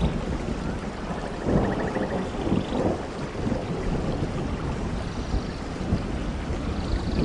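Steady rain falling, with low rumbling thunder that swells about one and a half seconds in.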